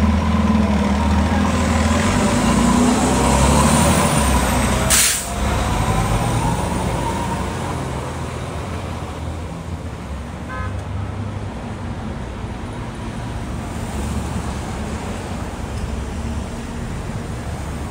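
Fire trucks' diesel engines rumbling as a fire engine and a ladder truck pull away, the rumble dropping off after about five seconds. A single sharp burst sounds about five seconds in, then steady street traffic noise.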